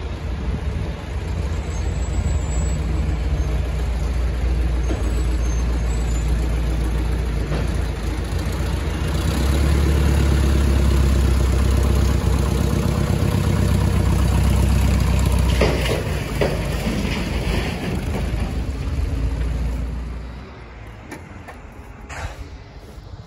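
Light single-engine propeller plane taxiing at low power, its piston engine and propeller running steadily and loudest as it comes close about ten seconds in. The engine is shut down near the end and the drone stops.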